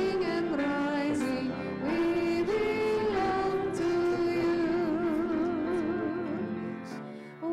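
A hymn sung with instrumental accompaniment; a long held note wavers with vibrato in the middle, and the phrase fades away just before the end.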